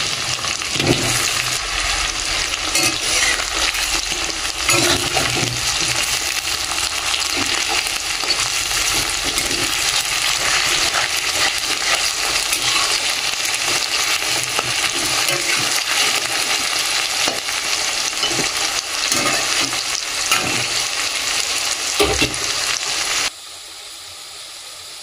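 Freshly washed, wet potato pieces sizzling in hot oil with fried onions in a kadai, with short scrapes and knocks of a metal spatula against the pan as they are stirred. The sizzle cuts off sharply near the end.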